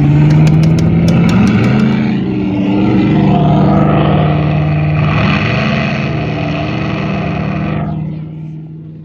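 Lightning McQueen kiddie ride playing race-car engine sound effects through its speaker, revving up and down, then cutting off about eight seconds in.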